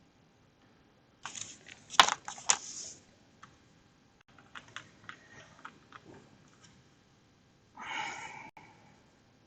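Cardstock trim pieces being handled on a tabletop: rustling and handling noise with two sharp taps about two seconds in, scattered small clicks after, and a short rustle near the end.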